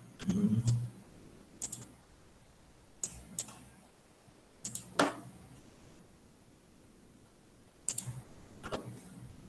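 Computer mouse clicking: about eight short, sharp clicks scattered irregularly a second or more apart, the loudest about five seconds in. A dull low thump about half a second in.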